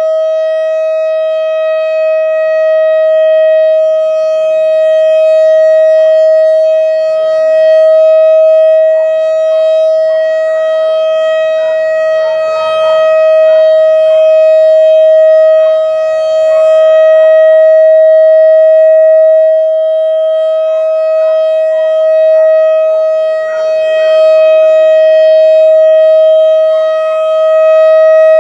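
Whelen WS-3016 outdoor warning siren sounding a steady, unbroken tone during a test, its loudness swelling and fading every few seconds.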